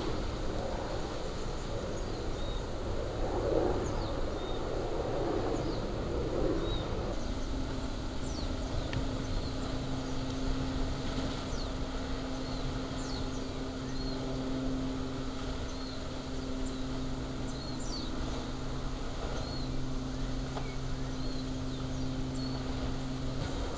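Lava fountain jetting from a Kilauea fissure, a steady deep rushing noise. The sound changes about seven seconds in, where a steady low hum sets in. Small birds chirp repeatedly over it.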